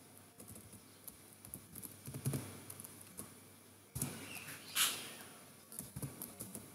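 Computer keyboard typing and mouse clicks: light, scattered key taps, with a few louder clicks around four to five seconds in.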